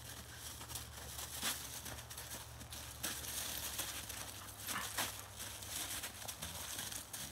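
Two dogs wrestling in snow and dry leaves: paws and bodies crunching and rustling, with a few sharper scuffs about a second and a half, three and five seconds in.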